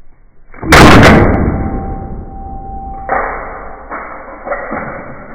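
Blows striking a plastic Rubik's cube, heard as long, dull thuds: one loud hit about a second in, then weaker hits around three and four to five seconds in, each trailing off slowly.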